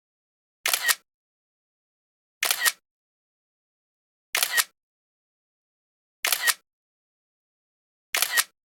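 A short, identical electronic alert sound repeating five times, about every two seconds, with dead silence between.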